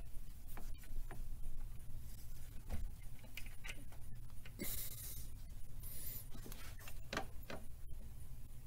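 Scattered light clicks and taps of hand tools and small metal engine parts being handled, with a brief hiss just under halfway through, over a steady low hum.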